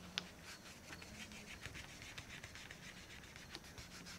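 Cloth rag scrubbing back and forth along the chrome barrel of a torque wrench, wiping lacquer fill-in paint off the stamped numbers: faint, rapid rubbing strokes, about six a second. A single light click comes just after the start.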